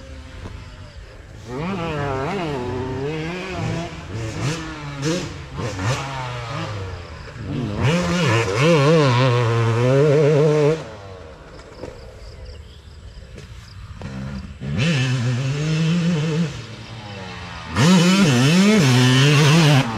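Motocross dirt bikes riding a track, their engines revving up and down in repeated surges as they come by. They are loudest about eight to ten seconds in and again near the end.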